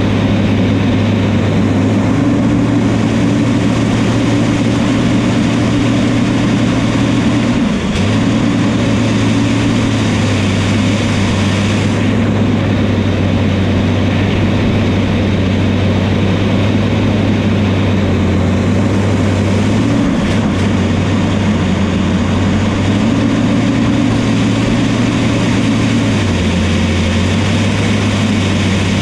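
Bulldozer's diesel engine running steadily under load. Its deep note dips briefly about a third of the way in and again about two thirds in, and settles slightly lower near the end as the load changes.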